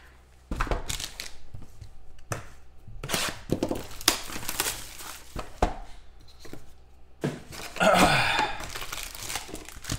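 Plastic shrink-wrap being torn and crinkled off a sealed box of football trading cards, in a series of short rips and rustles.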